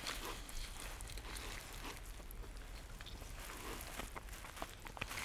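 Faint rustling with scattered small clicks and crackles, a European beaver moving about inside its lodge.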